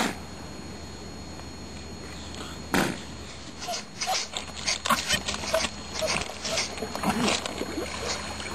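Young Antarctic fur seal mouthing and gnawing a wooden plank. A single knock comes about three seconds in, then a quick, irregular run of clicks and scrapes of teeth on wood.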